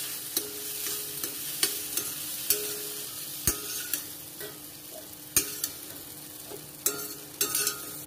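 Steel spoon scraping and clinking against a stainless-steel kadai as a tempering of onions, tomatoes and cashews is stirred and scooped, with sharp knocks that set the pan ringing briefly. Under it the hot pan sizzles, dying down slowly with the gas turned off.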